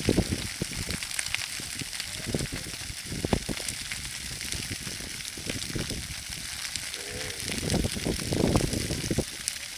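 Dry grass fire crackling and hissing as a line of flames burns across a field, with fine crackles throughout. Irregular low rumbles come and go, strongest a little before the end.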